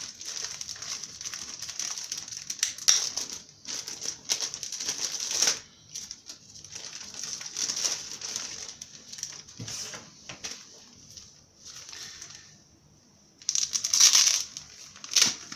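A travel neck bag and its packaging being handled, crinkling and rustling in irregular bursts, with the loudest burst near the end.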